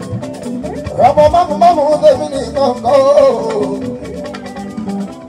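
A live band playing, with guitars and percussion, and a man's voice singing over it through the microphone from about one second in until past the middle.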